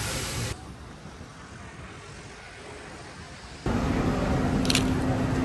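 Quiet background noise for about three seconds, then busy city-street traffic noise cuts in suddenly, with a steady low hum and a short high squeal a second later.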